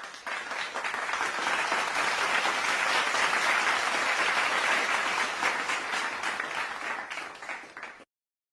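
A crowd applauding: dense clapping that builds up over the first second, holds steady, then thins out and stops about eight seconds in.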